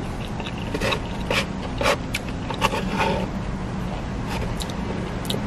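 Eating: chewing and mouth sounds, with scattered short clicks and scrapes of disposable chopsticks and a foam takeout container, over a steady low hum.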